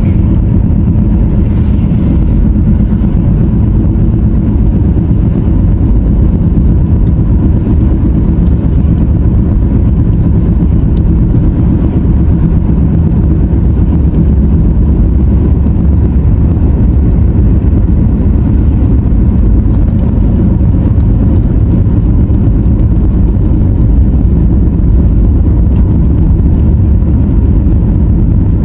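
Steady road and engine noise of a car driving along, heard from inside the cabin as a continuous low rumble.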